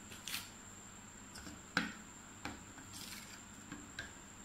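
Metal spoon stirring a thick fuller's earth (multani mitti) paste in a small glass bowl: faint scraping and squelching with scattered light clinks of the spoon on the glass, the sharpest about two seconds in.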